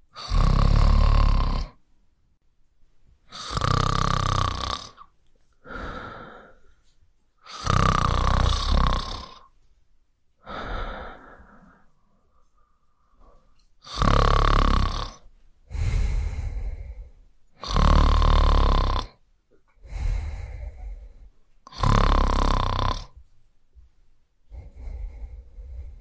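A person snoring in a steady sleep rhythm: six loud snores of about a second and a half each, one every four seconds or so, with softer breaths between them.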